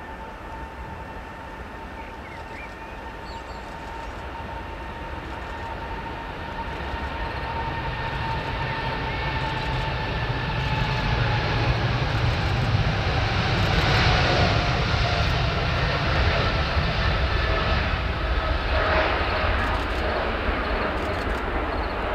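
Boeing 777F's twin GE90 turbofans at takeoff thrust during the takeoff roll and climb-out: a steady engine rumble with a high fan whine that slowly falls in pitch. It grows louder as the freighter passes, about halfway through, and eases a little near the end.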